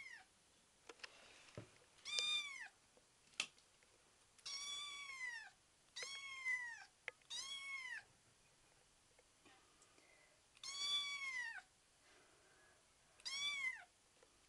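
Five-week-old kitten meowing repeatedly: six high-pitched meows, each rising then falling in pitch, spaced one to three seconds apart. A single sharp click comes about three and a half seconds in.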